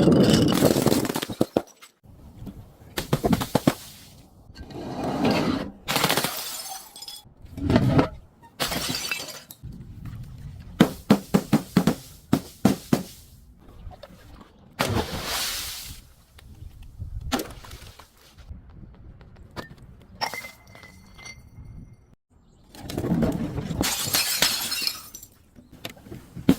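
Glass and other brittle objects being smashed and crushed: a series of separate crashes and crunching bursts, some breaking up into quick runs of sharp cracks.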